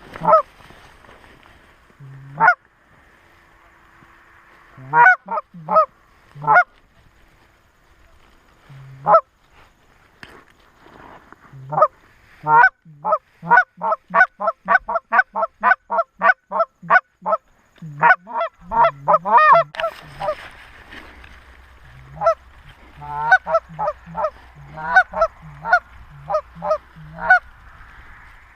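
Canada goose honks and clucks: scattered single calls at first, then a fast run of about two calls a second through the middle, then scattered calls again. A low steady rumble joins about two-thirds of the way through.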